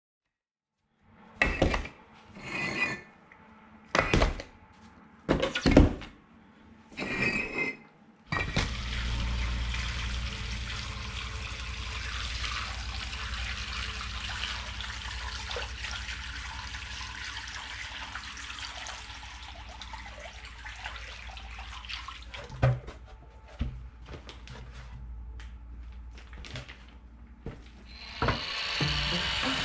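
Water poured from a plastic bucket into a tub of bricks to soak them before bricklaying: several short splashes, then a long steady pour. Near the end a harsher, steady hiss comes in.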